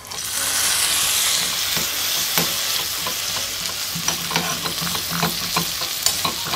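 Lemon juice hitting hot oil in a small metal kadai: a sudden sizzle, strongest in the first second or so and steadier after. A small metal ladle stirs and scrapes the pan, giving short clicks throughout.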